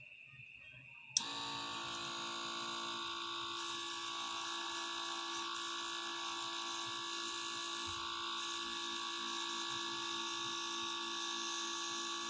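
Mini lathe's small electric motor switched on with a click about a second in, then running at speed with a steady whine.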